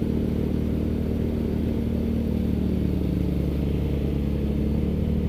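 Yamaha Mio scooter's single-cylinder four-stroke engine running at a steady, unchanging throttle while wading through deep floodwater, with water washing around it. The throttle is held constant so the floodwater does not get into the exhaust.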